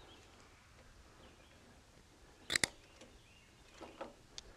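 Hand cutters snipping off the surplus lawn mower pull-cord rope: a pair of sharp clicks close together about two and a half seconds in, followed by a few faint handling ticks near the end.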